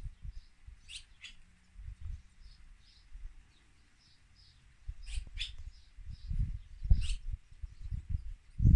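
Barn swallows chirping: short, high chirps, some in quick pairs or clusters. Bursts of low rumbling noise on the microphone come and go, heaviest in the second half.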